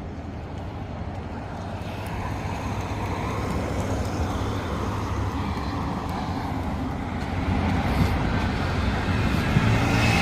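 Road and tyre noise of a car driving, heard steadily from inside the cabin and growing gradually louder.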